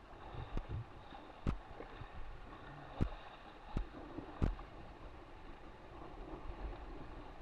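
Water sloshing and lapping around the hull of an RS600FF foiling dinghy in shallow chop, with wind on the microphone. Four sharp knocks from the boat come through it about one to four and a half seconds in.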